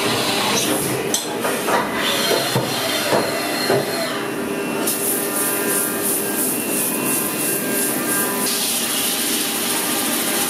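CNC machining centre working an aluminium bicycle frame: the machine runs with a steady whine, with a few sharp knocks in the first seconds. A hiss of coolant spray comes in about halfway and grows near the end as the seat tube is reamed.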